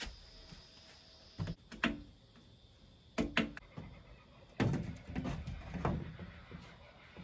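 Wooden slatted screen panel knocking and bumping against a timber frame as it is lifted and fitted into place: a few sharp knocks, then a run of duller thuds and scraping about halfway through.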